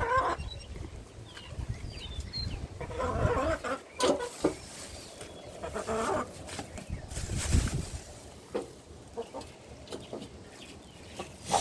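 Chickens clucking, several short calls coming and going.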